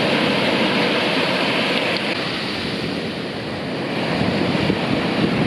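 Surf breaking on a beach: a steady rush of waves that eases a little about three seconds in and then builds again.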